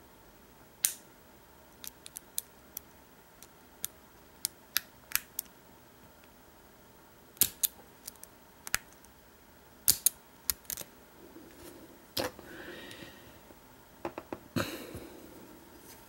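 Sharp, irregular metal clicks of a hook pick and tension wrench working the pin stack of an American Lock 1100 padlock during single-pin picking, with the core under light tension. Brief scraping rustles come about twelve seconds in and again near the end.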